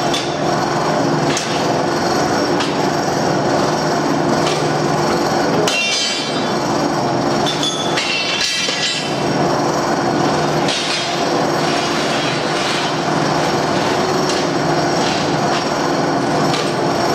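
An industrial rebar-processing machine runs with a steady hum. Irregular sharp metallic clanks and knocks sound over it as threaded steel rebar is fed through and handled.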